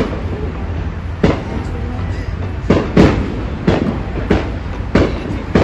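Fireworks going off in the distance: about seven irregular bangs, each trailing off in an echo, over a steady low hum.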